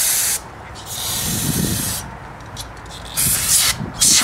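Aerosol cleaner hissing out of a can's thin extension straw onto a rusty brake drum, in several bursts: a short one at the start, a longer one of about a second, then two short ones near the end.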